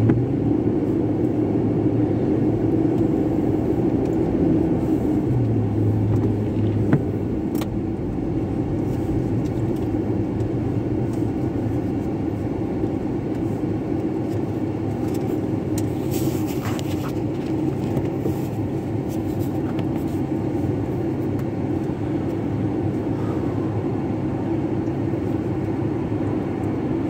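Steady low engine and road rumble of a car heard from inside the cabin. For most of it the car sits stopped at a red light, idling.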